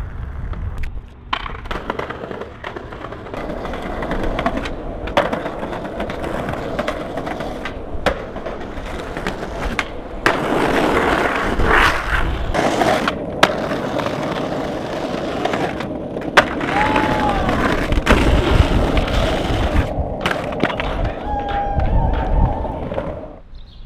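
Skateboard wheels rolling on rough asphalt, a steady grinding rumble, broken by several sharp clacks of the board hitting the ground.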